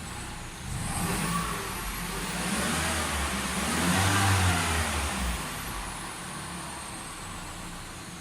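Citroen C4 Grand Picasso's 1.6 THP turbocharged four-cylinder engine revved once from idle and let fall back. The engine speed climbs about a second in, peaks around four seconds and drops back to idle about two seconds later. The throttle is being opened to check high-pressure fuel rail pressure after the high-pressure fuel pump was replaced.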